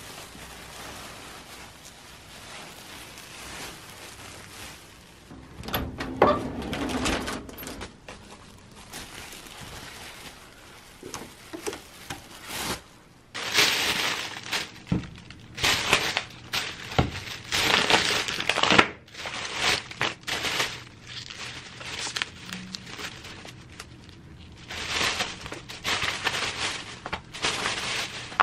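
Packaging being handled, crinkling and rustling in irregular bursts that grow busier in the second half.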